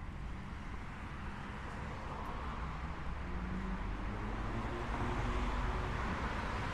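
Street traffic: a motor vehicle drawing nearer over a low rumble, growing steadily louder.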